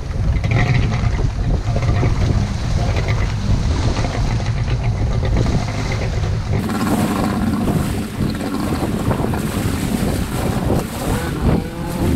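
Wind buffeting the microphone over the two-stroke engine of a 1997 Sea-Doo GS personal watercraft pulling away across the water, its engine pitch rising and falling with the throttle.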